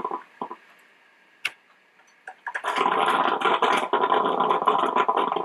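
Melitta Gevalia BCM-4C drip coffee maker gurgling and sputtering as it pumps hot water through mid-brew. The gurgle dies away for about two seconds, with a single click in the lull, then starts up again and carries on steadily.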